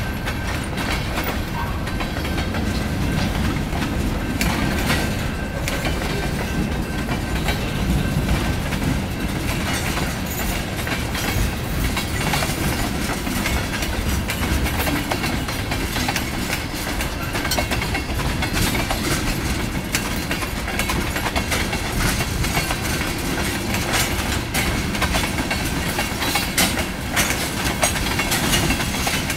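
CSX freight train's cars rolling steadily past through a grade crossing, with a continuous low rumble and wheels clacking over the rail joints.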